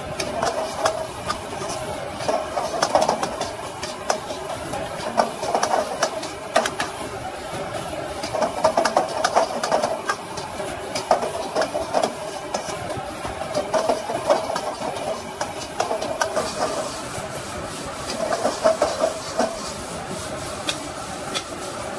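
Stir-frying in a wok over a roaring gas burner, with a metal spatula scraping and knocking against the wok many times in quick, uneven strokes.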